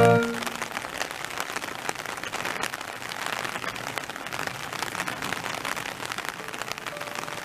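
Heavy rain falling: a steady hiss with many small drop ticks.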